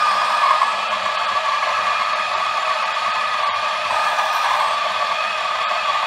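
DF64V 64 mm flat-burr coffee grinder, set to 1200 RPM, grinding a dose of medium-roast espresso beans: a steady, loud whirring grind.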